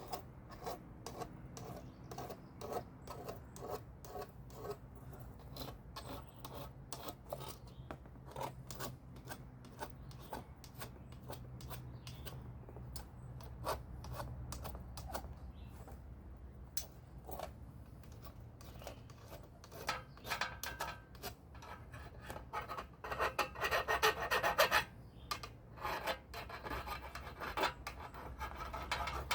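Hand filing on the cut end of a metal line, short scraping strokes that square and deburr it for flaring, with a denser, louder run of strokes near the end, over a steady low hum.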